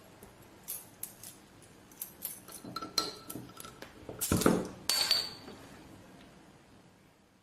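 Light metallic clicks and clinks, as of small metal objects or a keychain tool handled against metal or glass. Two louder clinks come about four to five seconds in, one ringing briefly.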